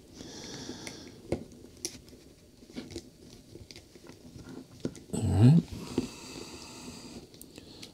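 Faint, scattered clicks and rustles of fingers working an insulated wire through a hole in a plastic housing. A man says "Alright" about five seconds in.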